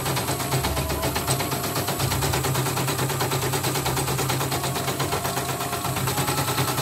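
Computerized embroidery machine stitching a design, its needle mechanism making a rapid, even clatter over a steady motor hum.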